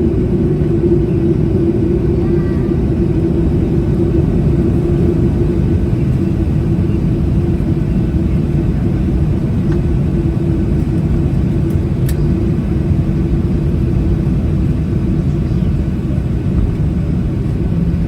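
Boeing 737-800 cabin noise while taxiing, heard from a window seat beside the engine: the CFM56 turbofans running near idle with a steady rumble and a constant low hum.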